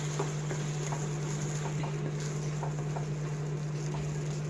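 Thick tomato and onion sauce simmering in a kadai, with soft scattered pops and sputters over a steady low hum.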